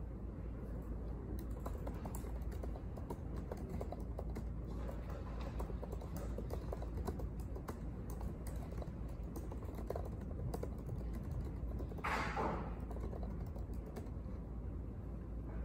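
Fingers typing on a laptop keyboard: rapid, irregular key clicks over a steady low room hum, with a brief louder swish about twelve seconds in.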